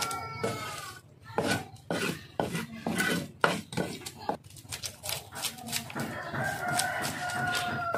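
Large knife scraping scales off a whole fish on a wooden cutting board: a run of quick, irregular scraping strokes and knocks. Near the end a long, held call sounds in the background.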